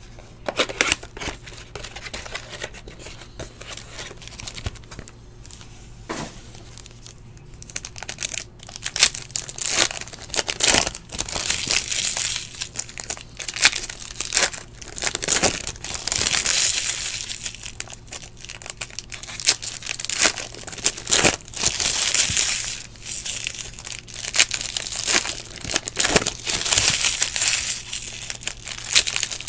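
Plastic shrink-wrap and foil card-pack wrappers from a 2017 Bowman Chrome baseball box crinkling and tearing as they are ripped open by hand. Sparse rustling for the first several seconds, then busier, louder crinkling and tearing.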